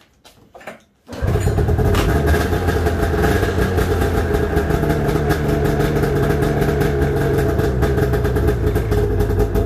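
2003 Arctic Cat ZL550 snowmobile's liquid-cooled two-stroke engine running steadily at idle, cutting in abruptly about a second in.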